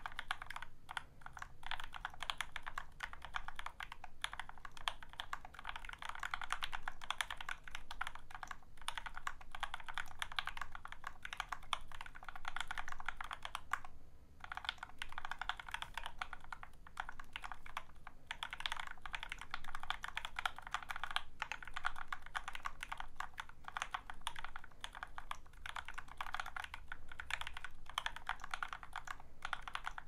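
Continuous typing on a YMDK Wings aluminium Arisu-layout custom mechanical keyboard with an integrated plate, lubed H1 linear switches (Krytox 205g0, Deskeys films) and GMK Umbra keycaps. It makes a dense stream of keystroke clacks, with a brief pause about halfway through.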